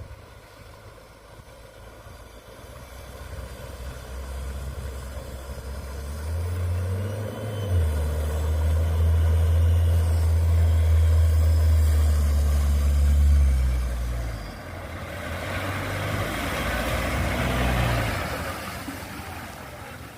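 Mitsubishi Sportero diesel pickup's engine running under way: a low drone swells to its loudest in the middle of the stretch and drops in pitch about two-thirds through. A rushing noise follows, and the sound fades near the end.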